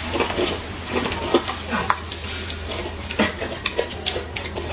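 Spoons scraping and tapping in yogurt cups, with many short irregular clicks, alongside chewing of the yogurt's crunchy cereal topping.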